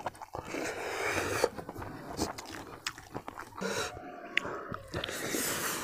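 A person chewing a mouthful of duck biryani close to the microphone, with scattered sharp mouth clicks and smacks.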